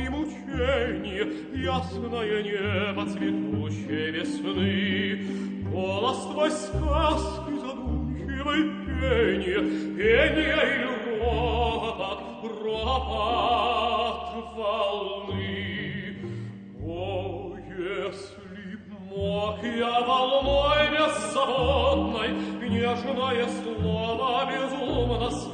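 Operatic tenor singing an aria with vibrato, accompanied by an orchestra.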